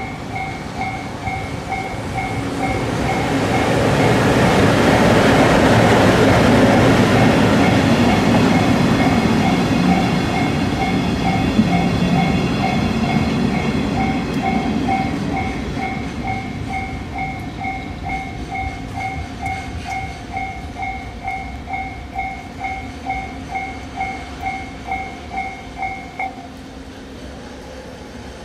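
Japanese level-crossing bell ringing in a steady two-tone ding-ding at about two strokes a second, while a slow freight train rumbles past. The rumble swells, peaks and fades. The bell cuts off abruptly near the end as the crossing clears.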